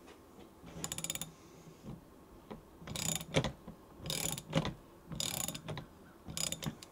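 Socket ratchet wrench clicking in about five short bursts of rapid clicks, one per back-stroke of the handle, as it turns the forcing screw of a steering wheel puller drawing a bearing off an electric motor shaft.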